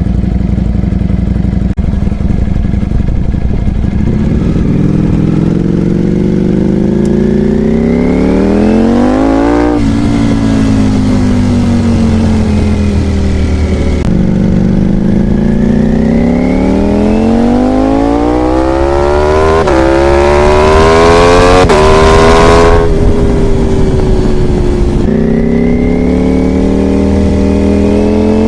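Ducati Panigale V4 R race bike's V4 engine under hard acceleration, revs climbing in long pulls and dropping sharply at each quick upshift, easing off between runs.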